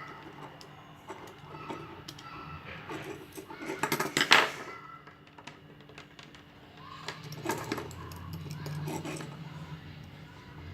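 Small metallic clicks and rattles of electrical wiring work on a switchboard, as wires and switch parts are handled and fitted, with a louder scraping rustle about four seconds in and a shorter one near seven and a half seconds.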